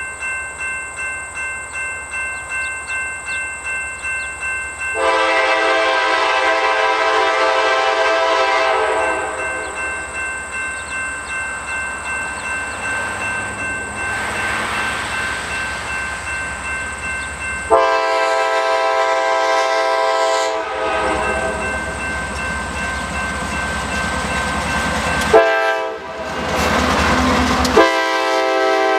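Two CSX GE AC44CW diesel locomotives sounding the horn for a grade crossing: two long blasts, a short one, then a long one. A crossing bell rings about twice a second before the first blast and between the first two. The engines and train grow louder from about two-thirds of the way through as the locomotives pass.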